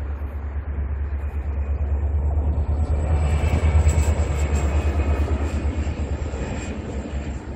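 Korail diesel-electric locomotive passing on the line, its engine rumbling and swelling to a peak about four seconds in before easing off, with a thin high whine over it from partway through.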